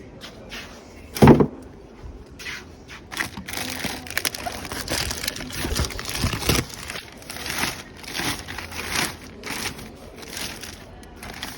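Packaging being handled during an unboxing: irregular crinkling and scraping rustles of plastic and cardboard, with one louder thump about a second in.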